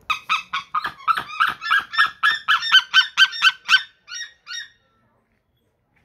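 White-tailed eagle calling: a rapid series of sharp, pitched calls, about four a second and growing louder, then two last calls after a short gap, stopping about four and a half seconds in.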